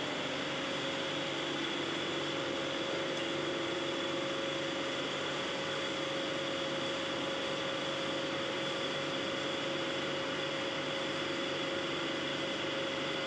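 Steady machine hum with hiss and a few constant whining tones, unchanging throughout.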